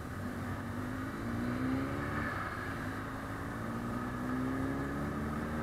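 Motorcycle engine running under way, its pitch climbing as it accelerates, dipping about two seconds in, then climbing again.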